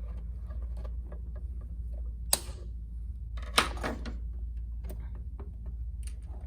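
Two sharp snips about a second and a half apart, the second louder with a short rustle after it: a plastic zip tie being cut off the console's cables. A steady low hum runs underneath.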